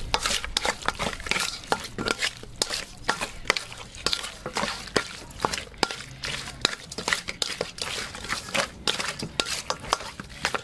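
A metal spoon stirring chunks of raw pork and garlic in a stainless steel pot, with repeated irregular clinks and scrapes of metal on metal and soft squelches of the meat.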